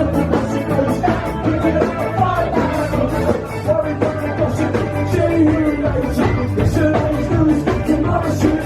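Live rock band playing a song, with a steady drum beat, bass and singing.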